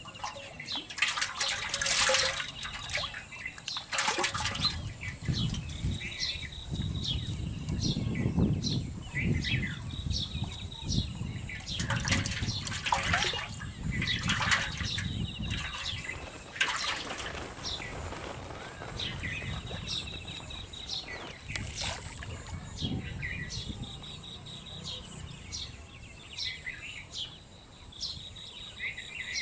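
Small birds chirping off and on over a low rumble, with several loud rustling or knocking noises, mostly in the first half.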